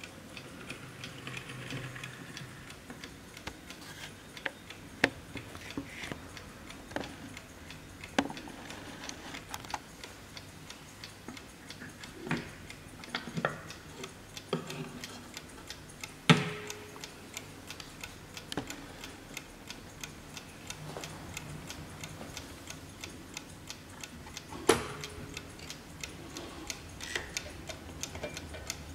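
Franz Hermle mechanical mantel clock movement ticking steadily, with a few louder knocks and clicks from the wooden case, the loudest about sixteen seconds in, as its back door is opened by hand.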